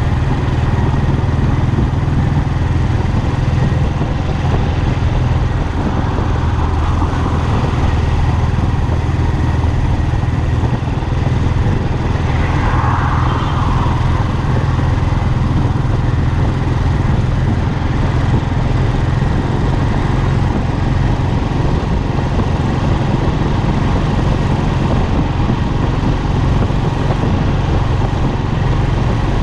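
Royal Enfield Classic's single-cylinder engine and exhaust running steadily at cruising speed, heard from the handlebars along with road and wind noise.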